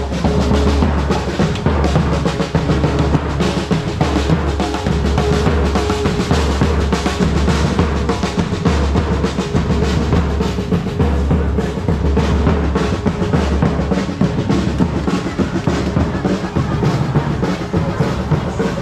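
Drums playing a busy, driving beat, dense with strikes over a deep bass drum.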